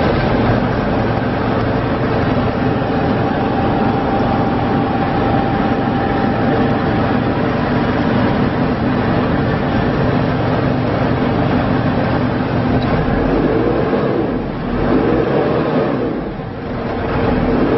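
Diesel engine of a Komatsu WB156PS-5 backhoe loader running steadily. Its note shifts upward and the level dips twice in the last few seconds.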